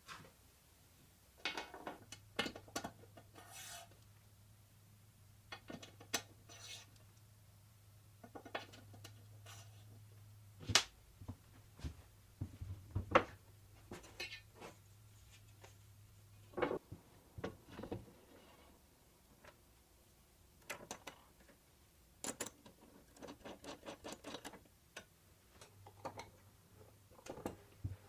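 Handling noises on a workbench: wooden strips and aluminium extrusion rails being set down and slid on a plywood tabletop. Scattered knocks, taps and rubbing, with two sharper clicks around the middle. A faint low hum runs through the first half and comes back near the end.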